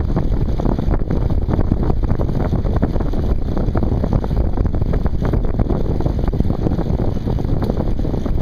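Wind buffeting the microphone of a camera on a moving bicycle: a steady, loud, low rush with no break.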